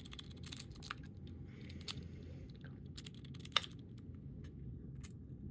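Metal lock picks raking and scraping inside a lock, with scattered small clicks, a short scratchy rub about two seconds in, and one louder sharp click a little past halfway.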